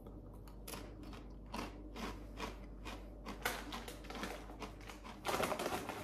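Mouth crunching and chewing a Takis rolled tortilla chip, in irregular crisp crunches, with a louder, denser stretch near the end.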